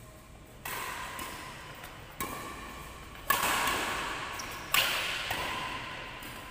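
Badminton rackets striking a shuttlecock in a rally: four sharp hits about a second to a second and a half apart, each ringing on in the echo of a large sports hall.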